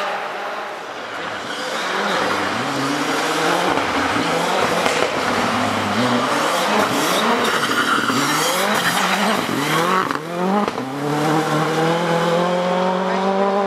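Rally car engine revving hard, its pitch sweeping up and down through gear changes and lifts. About ten seconds in there is a short dip and a sharp crack. After that the engine holds one note that climbs steadily as the car accelerates.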